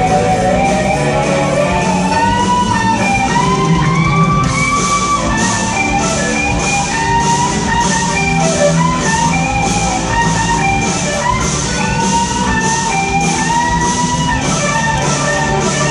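Live rock-jazz band: an electric guitar plays a sustained lead melody with bent notes over bass guitar and drums. About four seconds in, the cymbals start keeping a steady beat of about two strokes a second.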